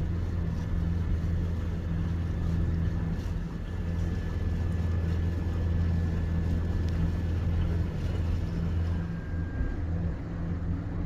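Shanty boat's motor running steadily underway: a low, even drone with a faint thin whine above it that fades out near the end.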